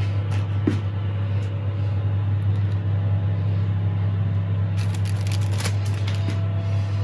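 A steady low mechanical hum from a running kitchen appliance, with scattered crinkles and light clicks of plastic wrap being handled as cheese slices are laid on a bun, most busily about five seconds in.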